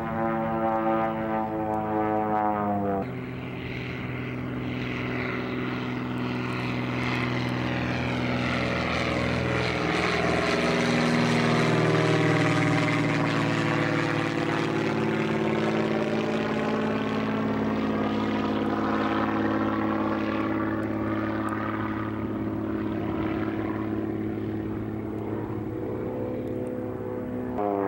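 Light propeller tow plane's piston engine running at climb power while it tows a glider aloft, swelling as it passes overhead about halfway through and then fading. It changes abruptly about three seconds in and again near the end, where a steadier, closer engine drone is heard.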